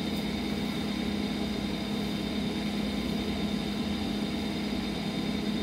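Steady machine hum of room background noise, a low drone with faint thin high whines above it, unchanging throughout.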